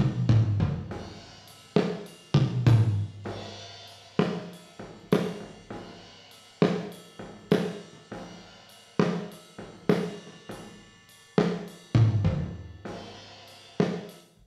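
Wet-only reverb return of a drum track's snare and toms, processed by the Convology XT convolution reverb. Each hit comes through as a roomy smear with a long fading tail, about one hit a second, and a few deeper hits ring low.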